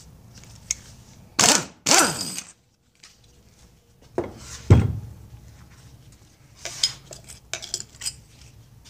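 Air impact wrench hammering the flywheel nut off an outboard motor in two short bursts about a second and a half in, followed by a single knock and a few light metal clinks of tools being handled.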